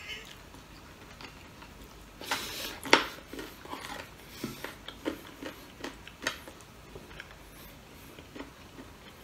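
Eating sounds: a piece of chicken picked apart by hand over a plate and chewed. Scattered small clicks and crackles, a short crackling rustle about two seconds in and a sharper tap just before three seconds.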